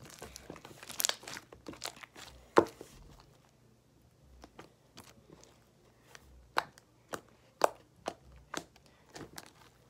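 Homemade glue-and-liquid-starch slime being kneaded and stretched by hand, giving scattered sticky pops and clicks. The loudest pop comes a few seconds in.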